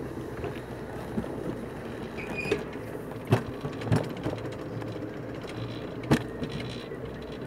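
Alpine coaster sled rolling along its tubular steel track: a steady rumble of the wheels on the rails with several sharp clacks, the loudest a little past three seconds and about six seconds in, and a brief squeak about two seconds in.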